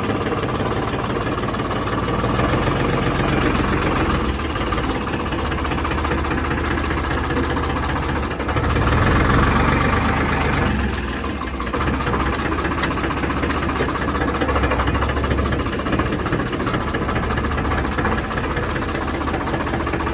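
Farmtrac tractor's diesel engine running while the tractor is driven slowly, heard from the driver's seat. It gets louder for about two seconds roughly halfway through, then settles back.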